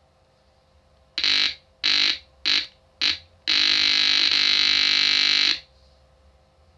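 Buzzy, distorted electronic tone: four short beeps in quick succession, then one long beep held for about two seconds before it cuts off.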